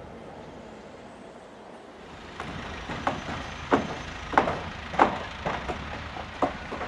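A steady background noise for about two seconds, then nails being driven into a timber house frame: irregular sharp knocks, about one or two a second.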